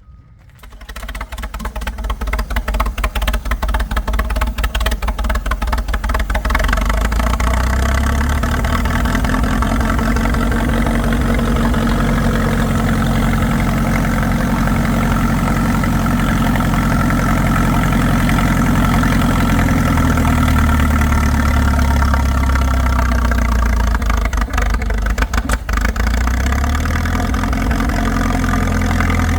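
Old tractor engine cuts in about half a second in with distinct firing beats, then settles into a steady run. Its pitch rises and falls back through the middle.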